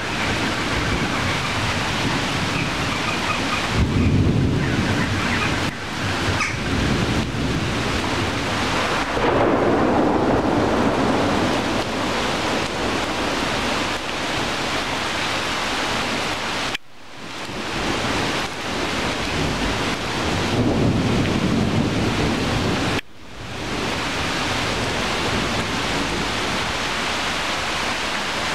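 Steady heavy rain falling on tree leaves, with low rumbling swells a few times. The sound drops away abruptly twice, in the second half, and comes back within a second or so.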